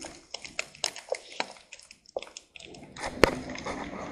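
Ham slices frying in a small pan on a portable butane gas stove: irregular small pops and crackles of spattering fat, with one sharper tick about three seconds in.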